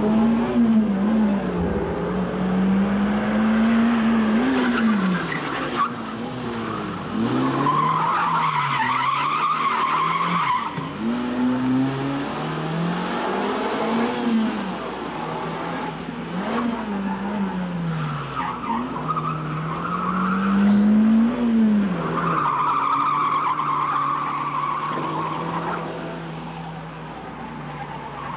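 Toyota MR2 (AW11) driven hard through a gymkhana cone course: its engine revs rise and fall again and again as it accelerates between cones and brakes, with tyre squeal in several stretches through the turns.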